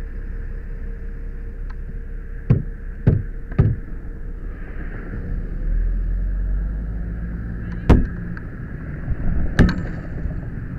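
Steady rushing noise with a low rumble at a burning car, broken by sharp knocks: three in quick succession a few seconds in, then two more later.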